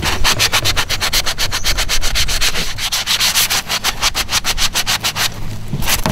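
Sandpaper rubbed briskly back and forth by hand along the edge of a StarBoard (HDPE plastic) plate, about five or six scratchy strokes a second, with a brief pause near the end. It is smoothing the rough-cut edge of the plate.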